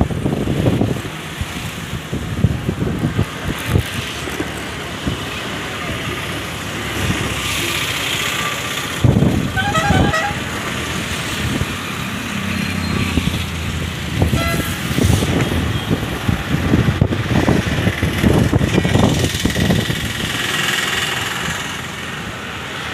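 Outdoor ambience of road vehicles with wind buffeting the microphone; a vehicle horn toots briefly about ten seconds in.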